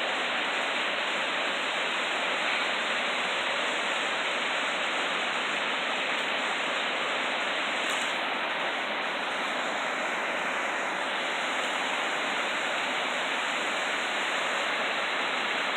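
Waterfall on Bear Run beneath Fallingwater, rushing steadily.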